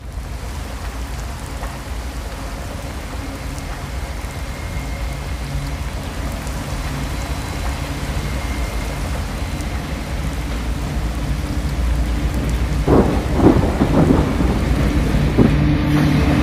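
Steady heavy rain with low rumbling thunder, and a few sharp thunder cracks about thirteen to fifteen seconds in. Near the end a diesel locomotive's engine sound grows in under the rain.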